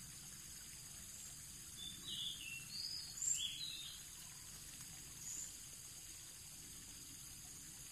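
Steady high-pitched insect drone with a few short, falling bird calls over it, the loudest about three seconds in.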